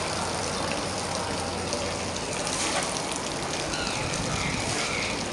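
Steady hiss of rain falling outside, an even wash of sound with no breaks.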